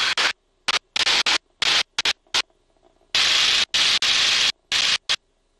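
Static-like hiss on a T-6 trainer's cockpit intercom, cutting in and out in about a dozen short bursts with dead silence between them, as the mic gate opens and closes.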